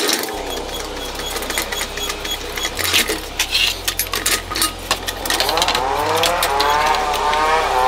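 Handheld power drill driving screws, its motor whine rising and falling in spurts as the trigger is worked, with short clicks and knocks throughout.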